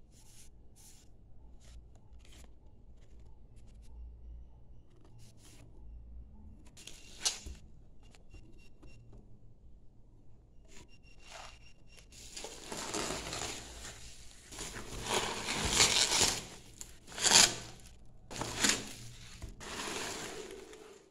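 Light handling of a paper card and a cardboard tea box, a few small taps and scrapes. About halfway through, loud rustling and crinkling of plastic bubble wrap begins as a hand rummages through the packing, with several sharper crackles.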